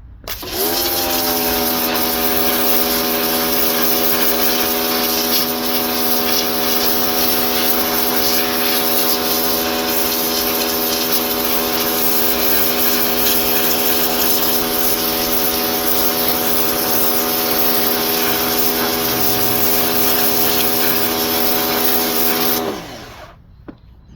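Yeryork electric pressure washer's motor and pump spinning up, running with a steady hum and hiss of the spray, then winding down and stopping near the end.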